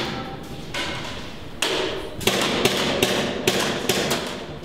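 Indoor airsoft gunfire: a run of sharp, irregularly spaced cracks and knocks, several a second, starting about a second and a half in.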